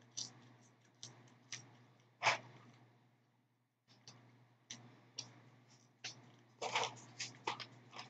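Soft mouth sounds of someone eating French fries: scattered small clicks and smacks of chewing, the loudest about two seconds in and a little cluster near the end, over a faint steady low hum.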